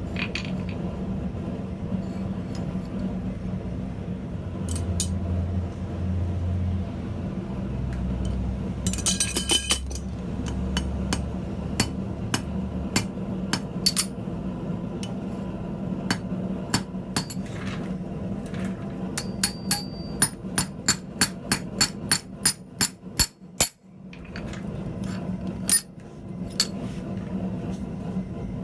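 Hand hammer striking steel on an anvil: scattered ringing blows, then a run of evenly spaced strikes at about three a second, over a steady low hum.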